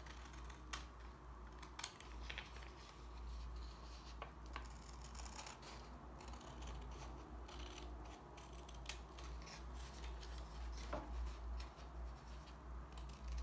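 Scissors snipping through coloured paper along a zigzag line, a series of short irregular cuts with small clicks of the blades, over a faint low hum.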